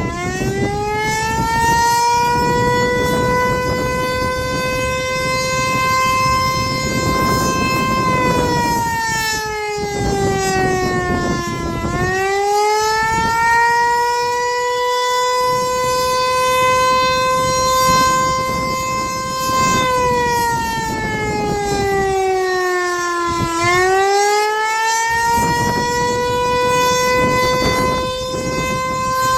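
Federal Signal Eclipse 8 electronic outdoor warning siren sounding its Attack signal: a loud wail with many overtones that rises, holds for several seconds, then slides down, repeating about every twelve seconds.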